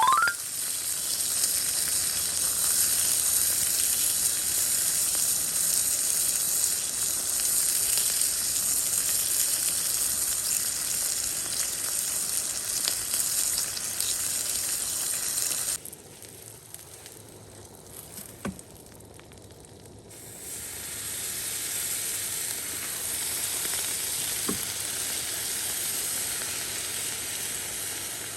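Food frying with a steady sizzle. About halfway through the sizzle cuts out suddenly for a few seconds, then comes back gradually, with a couple of light clicks.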